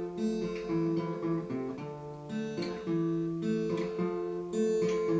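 Acoustic guitar strumming chords with no voice, the chords changing every second or so.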